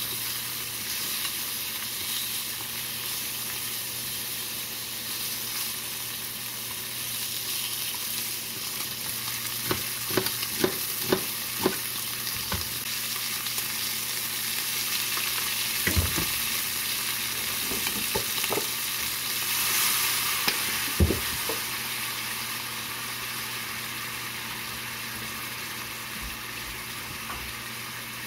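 Pork belly slices sizzling steadily in hot fat in a frying pan. A quick run of sharp clicks comes about a third of the way in, and single knocks follow a little later.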